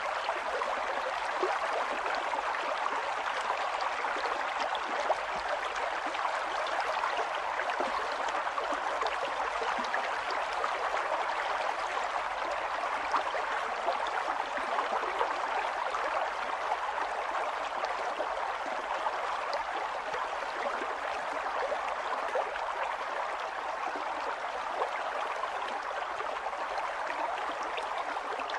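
Mountain water running and splashing steadily, an even rush with many small splashes and no change in strength.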